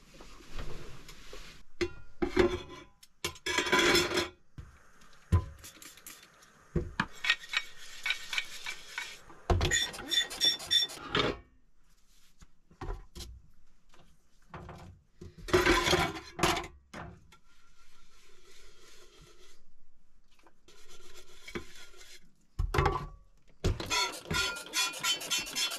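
Dishes and cutlery clinking, knocking and scraping in irregular clusters with short pauses; some strikes ring briefly like metal on metal.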